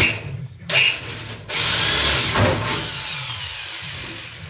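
Handheld power drill boring into the sheet metal of a car's front wing, making holes for the bolt-on fixings. There is a short run just after the start and a brief one about a second in, then a longer run of about three seconds that slowly fades as the motor winds down with a falling whine.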